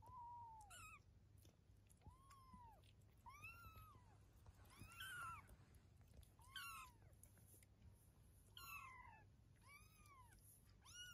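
Three-week-old kitten mewing over and over, about ten short, high, thin mews roughly a second apart, each rising then falling in pitch.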